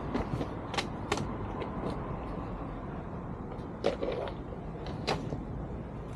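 A few sharp metallic clicks and knocks of hand tools being picked through and handled, over a steady low rumble.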